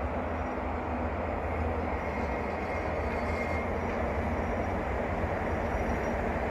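ET22 electric freight locomotive approaching with a train of container wagons: a steady rumble of the train running on the rails, growing slightly louder as it nears.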